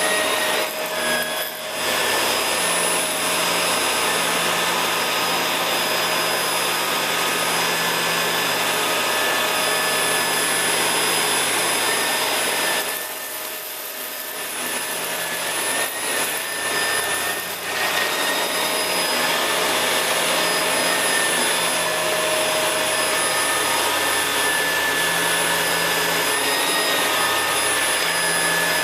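Shark Rotator vacuum cleaner running steadily while it vacuums up sequins and cut-up styrofoam, a constant motor hum with a high whine. Its sound drops briefly about 13 seconds in, then comes back up.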